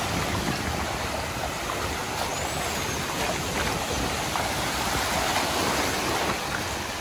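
Small sea waves breaking and washing over the shallows in a steady rush of surf.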